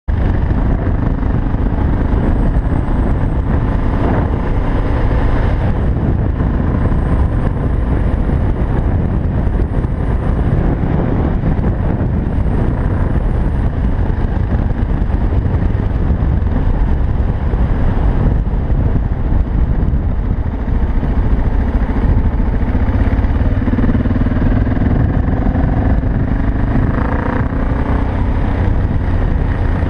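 BMW 650GS single-cylinder engine running steadily under way, picked up by a bike-mounted action camera, with a heavy steady rumble in the low end that buries much of the engine note.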